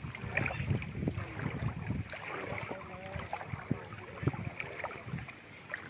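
Shallow floodwater sloshing and splashing around a person's legs as he wades and works a fishing net, with wind on the microphone.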